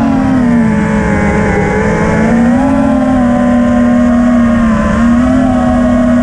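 FPV freestyle quadcopter's brushless motors and propellers whining loudly, heard from the onboard camera. The pitch holds fairly steady, lifting slightly a couple of times as the throttle changes.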